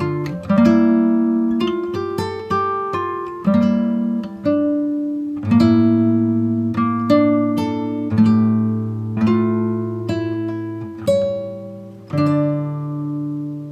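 Background music: a plucked acoustic guitar playing slow notes and chords, each struck about once a second and ringing out before fading.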